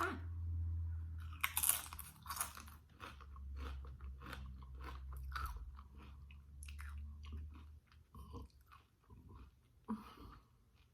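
Close-miked crunching and chewing of Doritos tortilla chips with queso, many crisp crunches that thin out toward the end.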